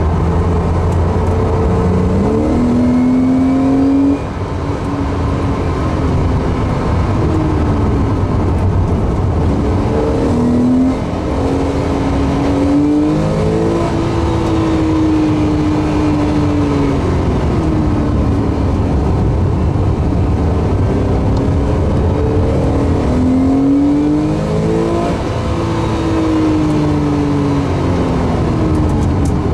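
Porsche 911 flat-six engine heard from inside the cabin, revving up and down as the car is driven hard through gear changes and corners, over steady road and wind noise. The engine note rises and falls many times, with sudden lifts off the throttle about four seconds in and again near eleven seconds.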